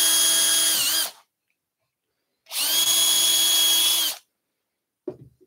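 Cordless drill boring small pilot holes in timber. It runs with a steady whine, stops about a second in after a brief dip in pitch, then runs again for under two seconds.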